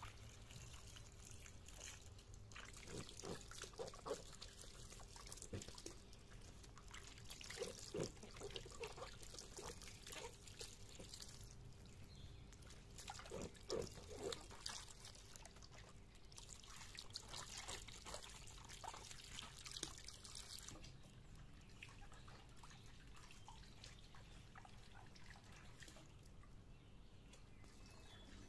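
Faint water sounds as vegetables are washed by hand in a metal basin: splashing, dripping and trickling with scattered small splashes, quieter after about 20 seconds.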